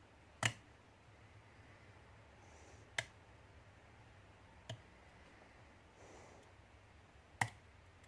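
Metal lock pick and tension tool clicking against the pins and plug of a pin-tumbler challenge lock being picked: four sharp, separate clicks a second or two apart, the first and last the loudest.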